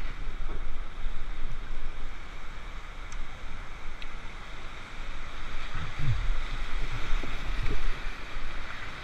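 Whitewater rushing and splashing through a river rapid around a small boat, with low gusts of wind buffeting the microphone now and then.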